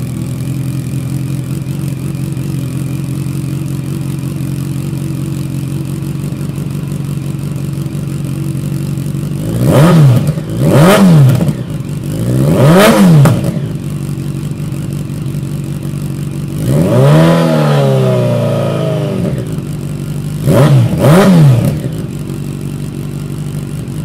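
2014 Yamaha FZ8's inline-four engine running through a Delkevic 8-inch mini slip-on exhaust, idling steadily, then revved with throttle blips from about ten seconds in. There are three short blips, one longer held rev and two quick blips before it drops back to idle.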